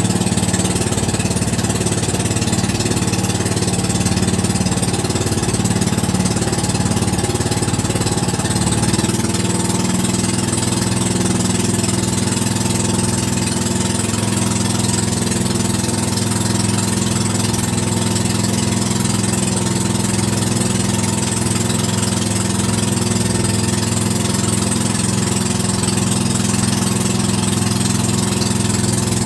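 Engine of a small outrigger motorboat (bangka) running steadily while the boat is under way. Its pitch shifts slightly about nine seconds in.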